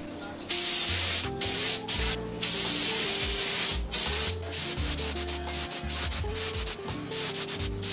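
Gravity-feed air spray gun spraying primer onto plastic scooter panels: a hiss that starts about half a second in and comes in a run of on-off bursts as the trigger is pulled and released. The longest burst lasts about a second and a half. Background music plays underneath.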